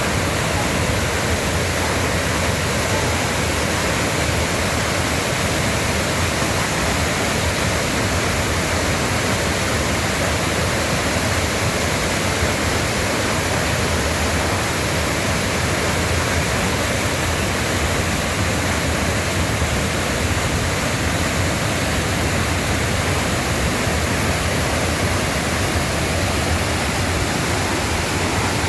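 Waterfall in a mountain stream, water pouring and splashing in a steady, loud rush.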